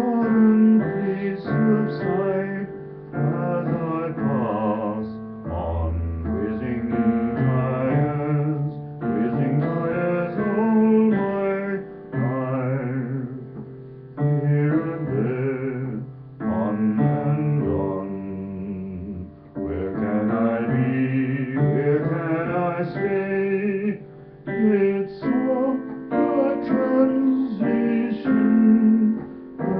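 Digital piano played in phrases of chords and melody, with short breaks between phrases.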